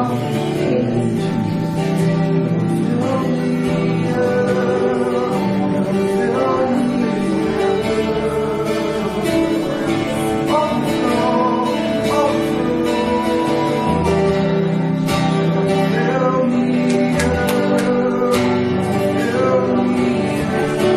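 Live worship music: an acoustic guitar being played, with singing over it.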